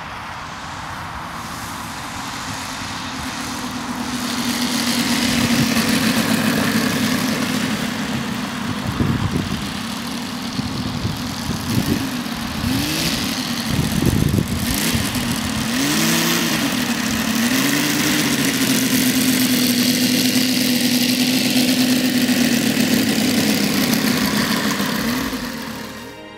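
The 64 cc P.H. FS400AR radial engine of a 1/5-scale model Stearman PT-17 running. Its pitch dips and rises several times in the middle with throttle changes, then holds steady before fading out near the end.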